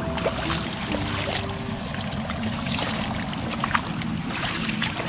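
Water sloshing and leaves rustling as a person wades and gropes with his hands through shallow water thick with leafy plants, with many short splashes and snaps.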